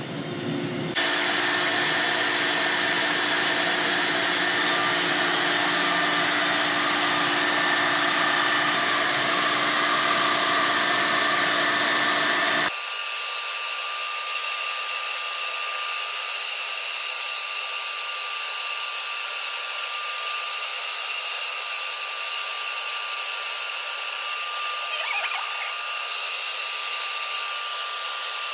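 Router spindle cutting a rotating wooden blank down to a round cylinder, about a millimetre per pass, with the dust extraction running: a steady whirring hiss with a thin whine over it. It starts about a second in, and about 13 seconds in the low rumble drops away suddenly.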